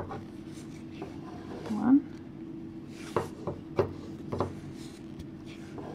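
Wooden 10 mm straight knitting needles clicking and tapping together as stitches are knitted in super chunky yarn, with a handful of sharp clicks in the second half. A short rising vocal sound about two seconds in, over a steady low hum.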